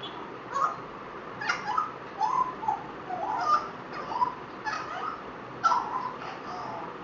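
African grey parrot giving a quick string of short chattering calls, squawks and clicks, one after another.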